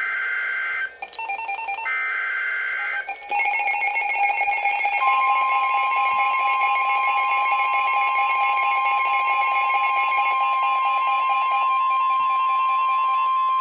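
Emergency Alert System weather radio alert: two shrill bursts of digital SAME header data, each about a second long, then a lower pulsing alert tone from about three seconds in, joined about five seconds in by the steady single-pitched NOAA Weather Radio warning alarm tone.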